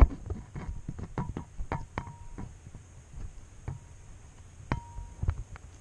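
Handling noise from a hand gripping and fumbling with the camera: a loud knock at the start, then scattered clicks and knocks, two of them followed by a brief ringing tone.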